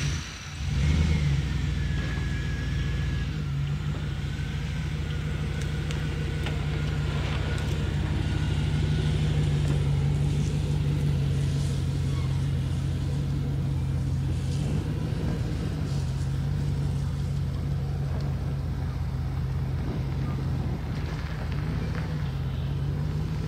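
A pickup truck's engine, just started, runs steadily at low speed as the truck is moved a short way. Its hum swells a little about ten seconds in.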